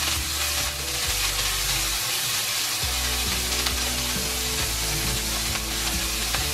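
Cubes of filet mignon sizzling steadily as they sear in a hot oiled pan while the pieces are turned with tongs, under background music.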